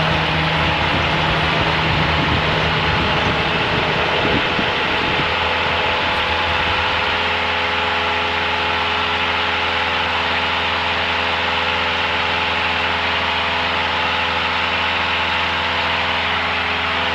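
Piston engine and propeller of a high-wing single-engine light aircraft droning steadily in flight, heard inside the cabin. The low tones shift during the first few seconds, then settle into an even hum.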